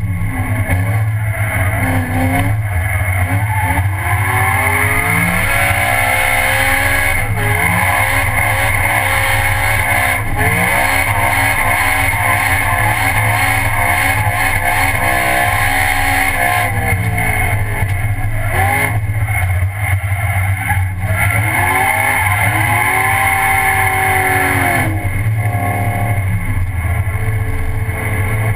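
BMW drift car's engine heard from inside the cabin, revving up and down repeatedly as the car slides through corners.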